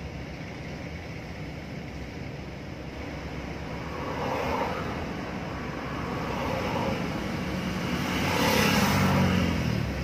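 Car driving on a road: a steady engine and tyre rumble with road hiss. It swells louder twice, most strongly about eight to nine seconds in, as with a vehicle passing close by.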